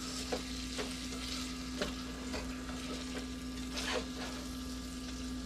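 Chunks of speckled sea trout being stirred gently with a spoon in a stainless saucepan of hot melted butter, which sizzles steadily, with a few light clicks and scrapes of the spoon against the pan.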